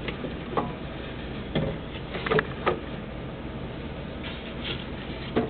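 A few scattered knocks and clunks of wood and tools being handled, over a low steady hum.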